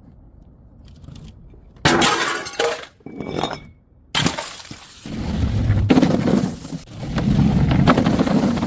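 Glass bottles smashing: a sudden crash about two seconds in, a brief ringing clink of glass, then a longer run of breaking and clattering glass from about four seconds on.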